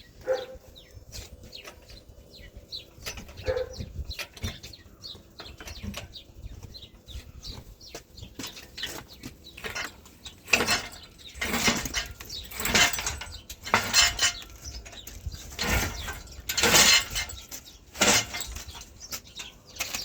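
Irregular clicks, knocks and light clatter, with a run of louder rustling, scraping bursts in the second half. Birds chirp faintly in the background.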